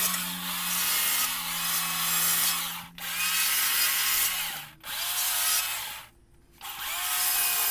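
Stihl battery-powered chainsaw cutting into the top of a log, making wedge-shaped cuts to round it over. The saw stops briefly about three seconds in and just before five seconds, then falls nearly silent for about half a second around six seconds before cutting again.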